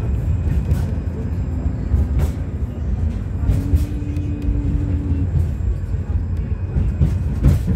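Tram running, heard from inside the passenger car: a steady low rumble with several sharp clacks from the wheels and track. About three and a half seconds in, a steady tone rises over the rumble for about a second and a half, then stops.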